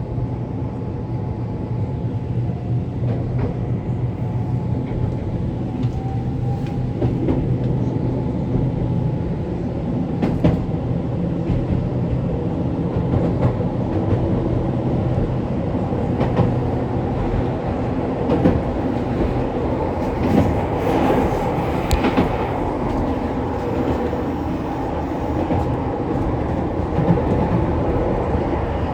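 Keihan Keishin Line electric train running between stations, heard from inside the car: a steady rumble of wheels and motors, with a few sharp rail clicks and a brief brighter stretch of noise about twenty seconds in.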